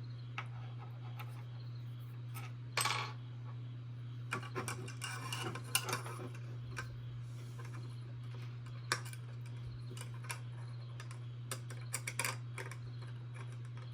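Small hard plastic robot-kit parts and tiny screws being handled: irregular clicks, taps and light scrapes, with a cluster of them in the middle, over a steady low hum.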